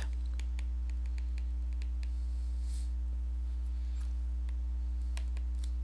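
Steady low electrical hum, with faint scattered light clicks and ticks of a stylus tip on a tablet screen as a word is handwritten.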